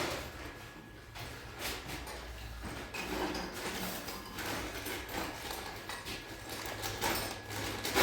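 Scattered light knocks, clicks and scrapes of kitchen cabinet installation work, with cabinet parts being handled and fitted.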